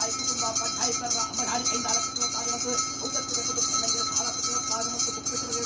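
Ritual percussion of a bhuta kola: fast, steady clanging of metal cymbals and bells that runs on without a break.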